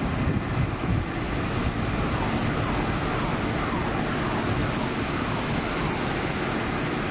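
Four-engine Airbus A340's jet engines at takeoff thrust: a steady, loud jet noise as the airliner accelerates down the runway, with a few faint whines falling in pitch.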